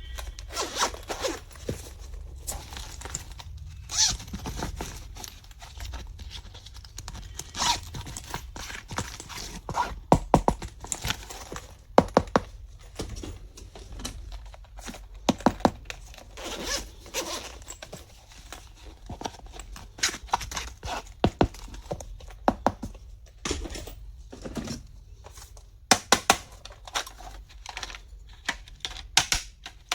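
Small stationery items and their packaging being handled close up: many sharp clicks and taps, several in quick clusters, with rustling and crinkling between them.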